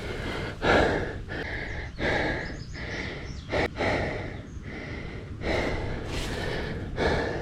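Mountain biker breathing hard: heavy, panting breaths close to the microphone, about one a second. A sharp click about three and a half seconds in.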